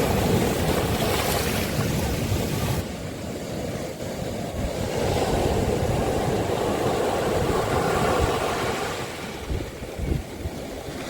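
Sea waves washing onto a beach: a steady surf wash that swells and eases, loudest near the start and again in the middle.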